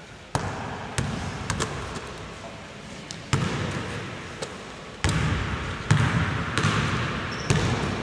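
A basketball bouncing and being caught on a hardwood gym floor: a string of irregular sharp thuds, each trailing off in the echo of a large hall.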